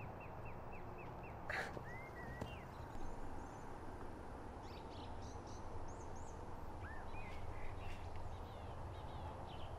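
Outdoor ambience with birds chirping, short high chirps and whistles scattered throughout. A single soft knock about a second and a half in.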